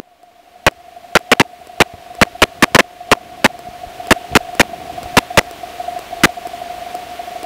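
Aircraft intercom audio: a run of sharp, irregular clicks and crackles, about twenty of them in the first six seconds, over a steady thin tone and a hiss that grows toward the end. These are the sounds of the passenger's headset and its leads being handled as he takes it off.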